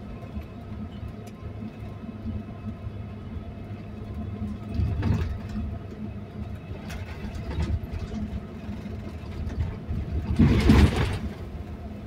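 Moving double-decker bus heard from inside on the upper deck: a steady low engine and road rumble, with a short, louder burst of noise about ten seconds in and a smaller one about five seconds in.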